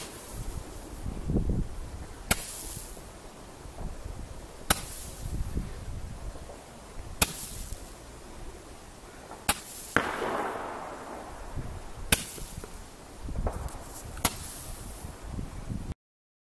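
Panda Roman candle firing stars one at a time: about seven sharp pops, roughly one every two and a half seconds, each followed by a short hiss as the star flies up. The sound cuts off suddenly near the end.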